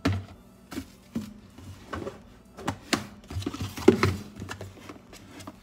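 Scattered knocks, clicks and light clatter of kitchen items being handled on a counter, about a dozen separate strokes, the loudest about four seconds in.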